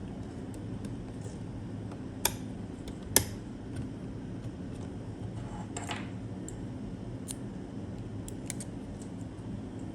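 Hand-handling clicks from parts and packaging during a PC assembly: two sharp clicks close together, the second the loudest, then a brief scraping rustle and a few light ticks, over a steady low hum.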